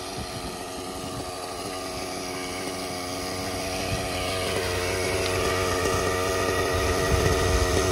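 Nitro glow engine of a Gaui NX7 RC helicopter idling on the ground after landing, while its main rotor winds down. The engine's steady buzz grows louder over the seconds.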